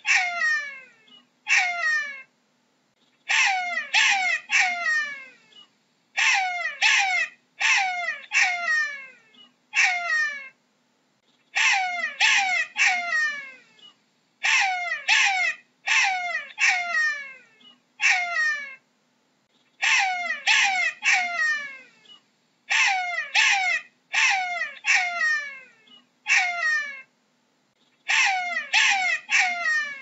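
Jackal calling: a run of high yelps, each dropping sharply in pitch, coming in quick groups of two to four with short pauses between groups, about one group every two seconds.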